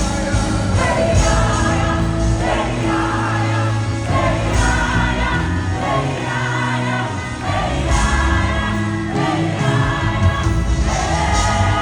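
Live gospel worship music: a choir and lead singers singing over a band with a steady bass, recorded on a phone.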